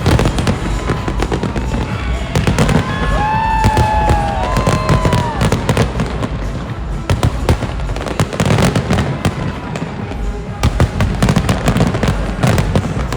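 Fireworks display: a dense, continuous run of bangs and crackles from aerial shells over a steady low rumble, with a few pitched whistling or gliding tones for a few seconds near the start.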